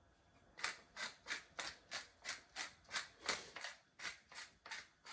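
Tall wooden pepper mill grinding black peppercorns, a short grinding stroke with each twist, about three strokes a second, starting about half a second in.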